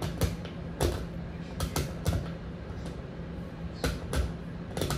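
Kitchen clatter: a string of short, irregular knocks and clinks from dishes and utensils being handled, about nine in five seconds, over a steady low hum.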